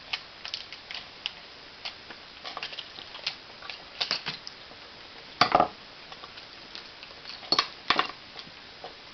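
Scissors snipping through a crinkly plastic Lego minifigure blind bag, then small plastic figure parts clicking and clattering on a tabletop. It is a run of light clicks and rustles, with the loudest clatters a little past halfway and again near the end.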